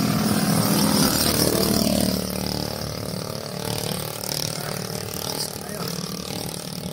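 A motor vehicle engine passes close by. It is loudest in the first two seconds, its pitch drops as it goes past, and then it fades, leaving a steady rushing noise.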